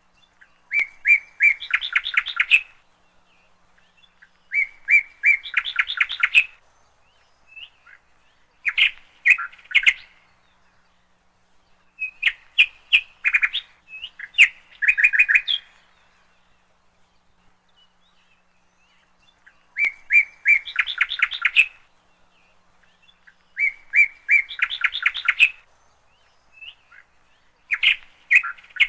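A songbird singing short, loud phrases of about two seconds, each a few even notes followed by a quicker run of notes, repeated about eight times with pauses of a second or more between them and one longer pause about two-thirds of the way through.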